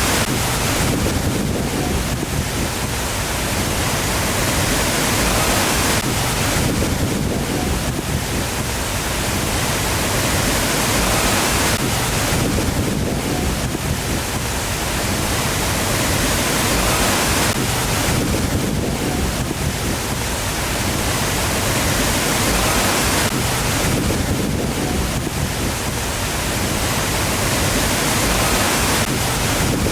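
Waterfall: a steady, loud rush of falling water, swelling and easing about every six seconds.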